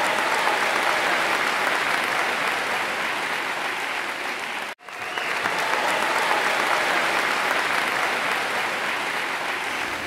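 Steady, dense crackling hiss, like pattering rain or applause, that drops out to silence for a moment about halfway through.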